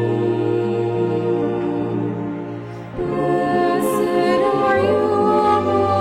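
Slow sung music with voices holding long notes in chords. One phrase fades out just before the middle, and a new one comes in about three seconds in.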